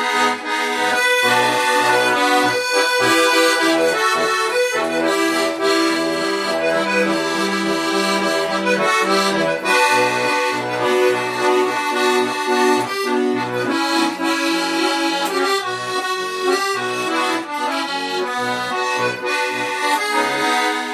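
Bayan (Russian button accordion) playing an instrumental interlude between sung verses: a melody over sustained chords, with a regular pulsing bass-and-chord accompaniment underneath.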